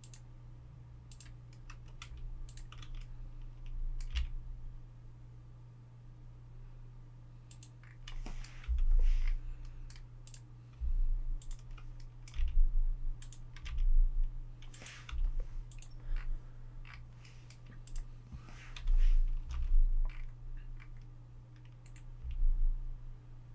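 Computer keyboard keys and mouse buttons clicking in scattered, irregular taps, bunched in short runs, over a steady low electrical hum.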